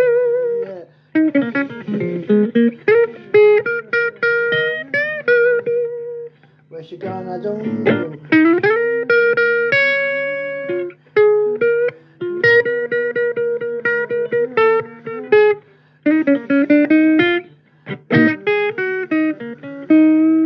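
Electric guitar playing a blues lead: single plucked notes with string bends and slides, some notes held, over a steady low hum.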